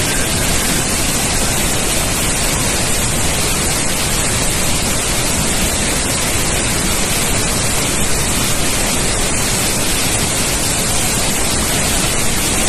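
Iguaçu Falls in flood after rain, carrying about 16.3 million litres per second: a loud, steady, unbroken rush of falling water and spray.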